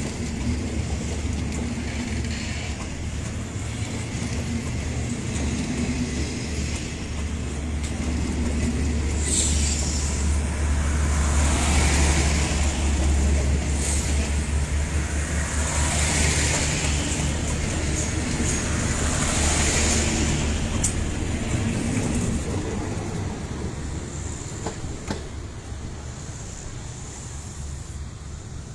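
Passenger train coaches rolling slowly past, a low rumble of wheels on rail. Several high-pitched squeals come and go through the middle, and the sound fades as the train draws away.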